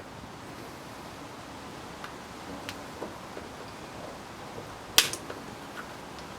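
Plastic shell of a 2008 Range Rover key fob being worked apart by hand: a few faint clicks, then one sharp snap about five seconds in, followed by a couple of smaller clicks.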